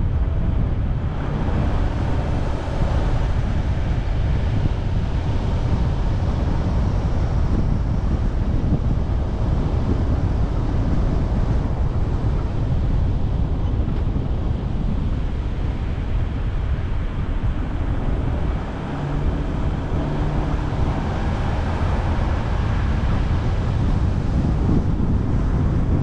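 Steady low rumble of wind buffeting the microphone of a camera on a moving car, mixed with the car's road noise. It eases briefly, and a faint hum shows, about three-quarters of the way through.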